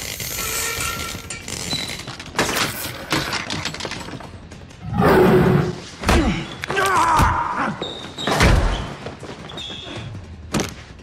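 Fight sounds from a TV action scene: a series of punches, kicks and body thuds landing, with pained vocal grunts in the middle of the fight, over a background music score.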